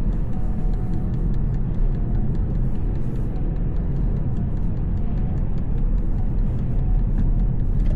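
VW T-Roc driving, its engine and tyres making a steady low rumble with faint scattered ticks.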